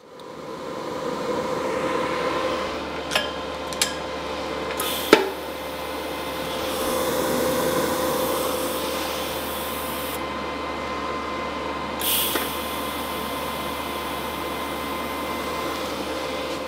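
Steady machine hum, like a running fan, with a few sharp clicks and a knock in the first five seconds and short hisses near five and twelve seconds.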